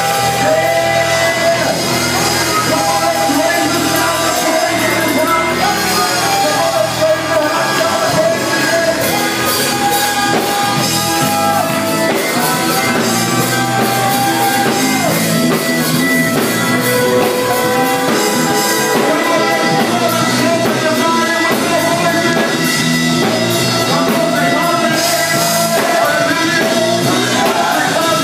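Gospel group singing live with instrumental accompaniment, loud, with long held sung notes over a full, continuous backing.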